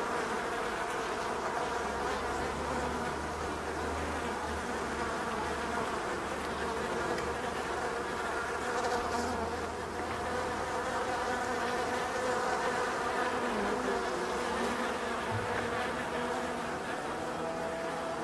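Honey bees buzzing at a hive entrance: a steady, dense hum of many wings at several overlapping pitches.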